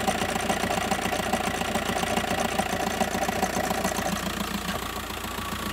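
VW T5 van engine idling with a rapid knocking running through it. The knock comes from the engine bay, and the mechanics suspect a failing dual-mass flywheel. The sound eases slightly about four seconds in.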